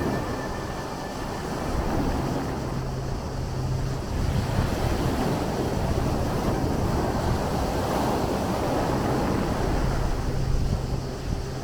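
Sea waves washing and breaking, with wind buffeting the microphone; one wave swells up about eight seconds in. A low steady hum comes and goes underneath.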